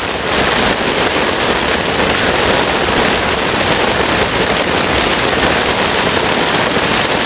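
Heavy rain pouring down steadily, an even, dense hiss with no letup.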